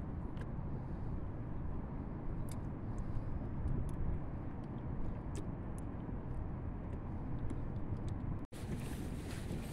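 Steady wind rumble on the microphone over water around a fishing kayak, with faint scattered ticks; the sound drops out for an instant near the end.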